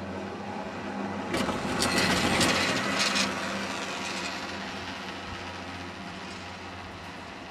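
Haul rope and chair grip of a Von Roll VR 101 single-seat chairlift running over a tower's sheave rollers: a rattling clatter of several sharp clicks starting a little over a second in and lasting about two seconds, over the steady rumble of the moving rope, which then fades back.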